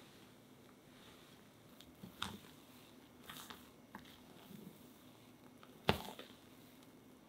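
Spatula folding cake flour into whipped egg sponge batter in a glass bowl: soft squishing and scraping, broken by a few light clicks of the spatula against the glass, the sharpest one about six seconds in.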